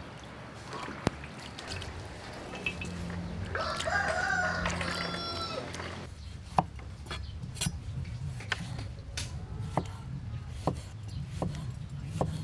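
A rooster crows once, about three and a half seconds in, a drawn-out call of about two and a half seconds. After it, a cleaver chops a tomato on a wooden cutting board, sharp knocks about once a second.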